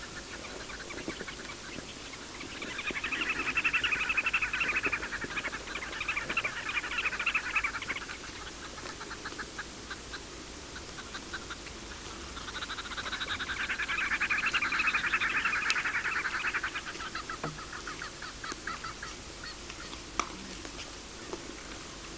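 Two bouts of rapid, harsh chattering calls from wild animals, each swelling up and fading away over a few seconds. A single sharp click comes near the end.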